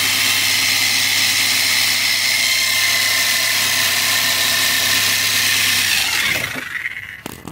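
Reciprocating saw (Sawzall) with a thin blade running steadily as it makes a relief cut through the rusted front shock-mount bolt and bushing. It winds down and stops about six seconds in, once the cut is through.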